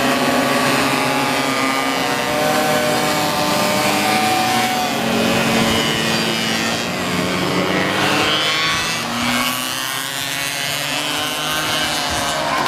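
Many minimoto pocket-bike engines, small two-strokes, buzzing and revving together as the pack launches off the start grid and accelerates away. Several engine notes overlap and climb in pitch at once.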